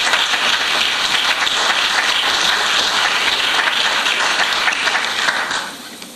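Congregation applauding: many hands clapping in a dense patter that dies down about five and a half seconds in.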